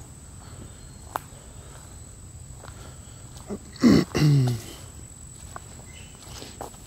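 Footsteps on a dirt forest trail under a steady high insect drone. About four seconds in there is one short, loud pitched call that falls in pitch.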